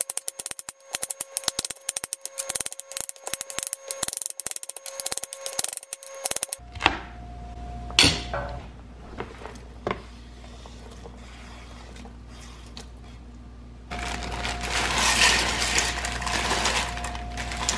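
Chef's knife chopping bell peppers on a wooden cutting board, quick rapid strokes for about six seconds. After a few single knocks, a bag of corn kernels is poured into the steel inner pot of an Instant Pot near the end, a rushing rattle.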